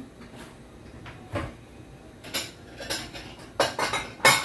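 Kitchen utensils and dishes clinking and knocking as they are handled and set down: a handful of separate knocks, the loudest near the end.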